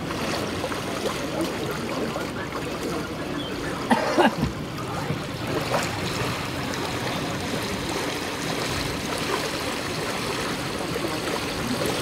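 Rockfall debris pouring down a cliff into a lake: a steady rushing, trickling noise like running water, with a brief louder sound about four seconds in.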